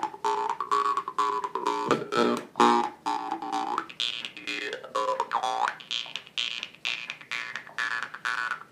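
Jew's harp played in a fast techno-style rhythm: a steady twanging drone plucked about four times a second, with the mouth moving its bright overtones up and down in wah-like sweeps.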